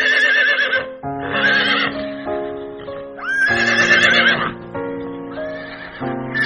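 Horse whinnying, four neighs with a wavering, quavering pitch, the third the loudest, over background music with held notes.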